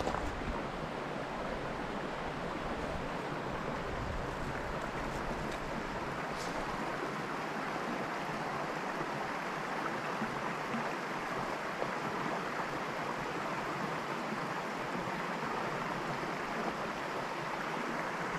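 Small woodland trout stream running over a riffle: a steady, even rush of flowing water.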